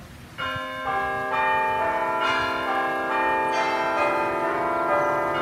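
Bell-like chime music, most likely added in editing. Notes come in one after another over the first few seconds and ring on together as a held chord.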